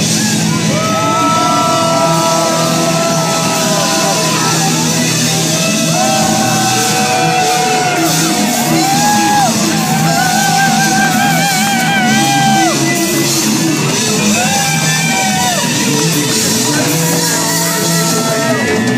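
Loud rock music from a full band with drums. Long held notes bend and waver over the top, with a wavering stretch about halfway through.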